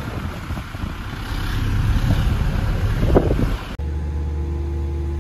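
Wind gusting against the microphone, a low uneven rumble growing stronger toward three seconds in. After about four seconds it cuts abruptly to the steady low machinery hum of a ferry's car deck, with a few held tones.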